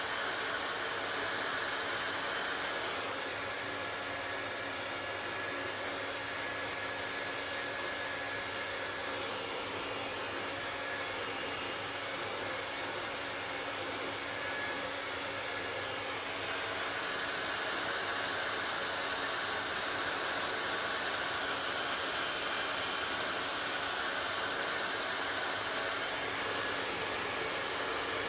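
Handheld hair dryer running steadily: an even rush of blown air over a constant motor hum. The sound dips slightly about three seconds in and comes back up a little after sixteen seconds.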